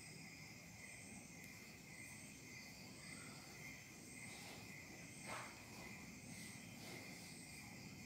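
Near silence: a faint, steady high-pitched background chirr with a soft tone repeating about once a second, and one brief soft rustle a little past five seconds in.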